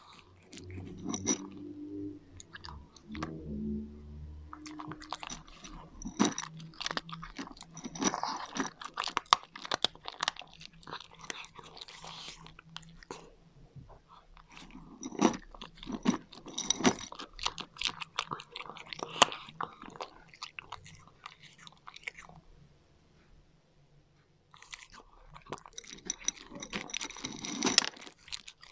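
A cat crunching and chewing dry kibble close to the microphone: rapid, sharp crunches in bursts, pausing for about two seconds near the end before starting again.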